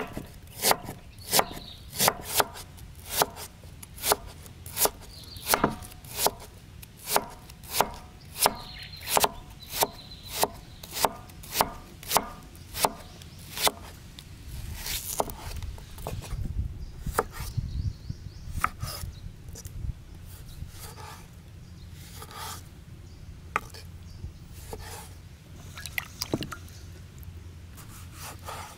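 A large kitchen knife chopping on a wooden cutting board: sharp, evenly spaced strokes about one and a half a second while slicing ginger, then softer, irregular cuts through red onion and tomatoes in the second half.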